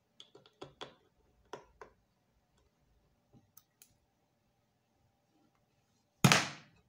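Small clicks and taps of wire connectors and a ribbon cable being handled on an amplifier board, several in the first two seconds and two faint ones around the middle, then one loud knock near the end.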